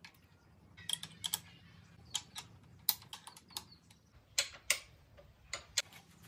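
Irregular light metallic clicks and taps from small steel parts and tools being handled against a homemade lathe's steel bed, about a dozen in all, unevenly spaced.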